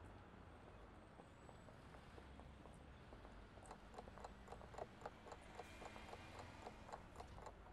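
Faint background hiss, then from about halfway a quick, even ticking of a countdown-timer clock sound effect, about five ticks a second.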